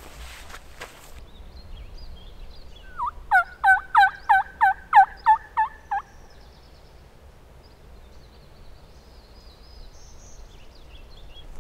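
Turkey call run through a series of about nine loud hen yelps, about three a second. Each note breaks sharply downward in pitch.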